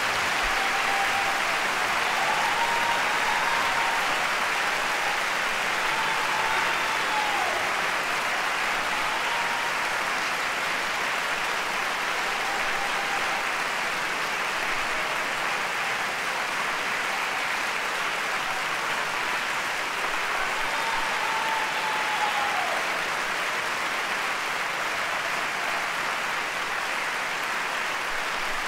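Opera house audience applauding steadily after an aria, with a few voices calling out over the clapping now and then.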